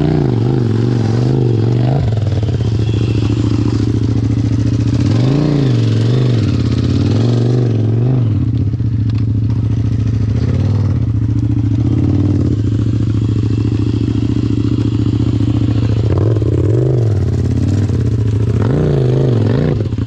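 Engine of a 100 hp modified Power Wheels 4x4 working hard off-road, rising and falling in repeated short revs, steadier through the middle.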